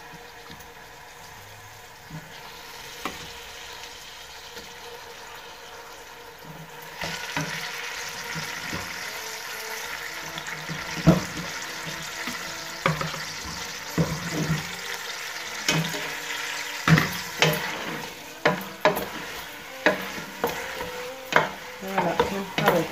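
Chicken pieces frying in hot oil and tomato paste in a stainless steel pot, a steady sizzle that grows louder about seven seconds in as the chicken goes in. A wooden spatula knocks and scrapes against the pot, more and more often in the second half as the chicken is stirred.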